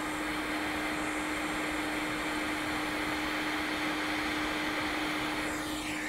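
Hot air rework station blowing onto a laptop motherboard to desolder a small chip: a steady rush of air with a constant low hum.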